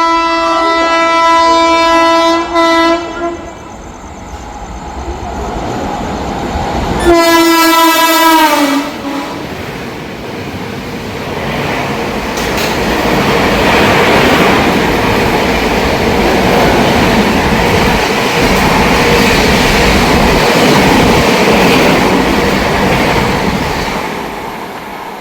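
A diesel locomotive horn sounds a long steady blast, then a second blast about seven seconds in whose pitch drops as the locomotive passes. The train then runs through at speed, its wagons rattling and clattering over the rails, fading near the end.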